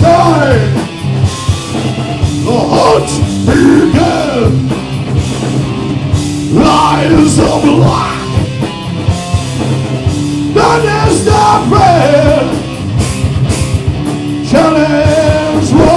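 Live rock band playing loud, with drums and guitar, and a singer's sung lines coming in about every four seconds.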